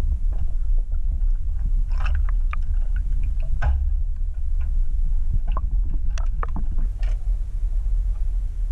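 Airboat running: a steady low rumble, with scattered short clicks and knocks over it.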